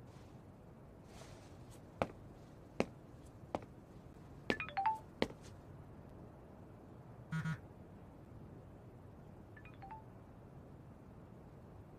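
Smartphone chat-app sounds: a few sharp taps, a short falling two-note chime as a message posts (twice, about four and a half seconds in and near the end), and a brief double buzz in between.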